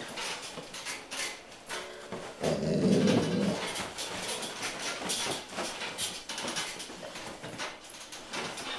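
Golden retrievers scuffling over a toy, with repeated scrabbling and knocking sounds of paws and bodies. A loud, low growl comes about two and a half seconds in and lasts about a second.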